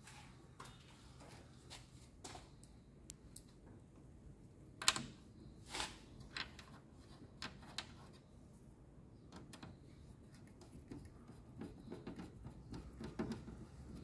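Faint, scattered plastic clicks and taps as a washing machine's replacement control board is handled and seated in its plastic control-panel housing; the loudest click comes about five seconds in.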